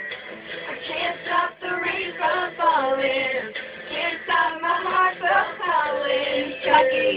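Young girls singing along with a pop song that plays with female vocals and a backing track.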